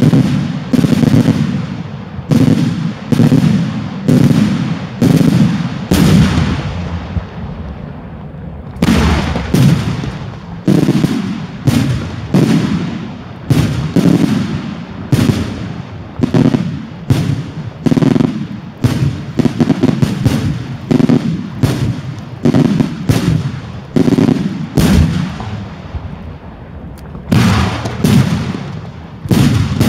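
Daytime fireworks display going off in a run of loud bangs, about one or two a second, each trailing a rumbling echo. There is a brief lull about seven seconds in, and the bangs come faster near the end.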